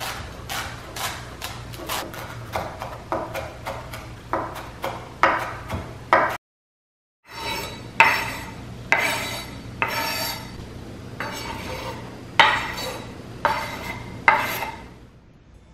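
Kitchen knife chopping cilantro on a bamboo cutting board in quick, even strokes, about three a second. After a short break come slower scrapes about once a second, each with a ringing clink, as chopped cilantro and onion are scraped off the board into a glass bowl.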